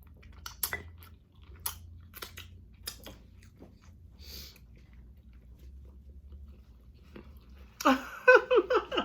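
Close-up chewing of spicy chicken wings, with scattered wet smacking clicks of the mouth. A loud, short vocal sound comes near the end.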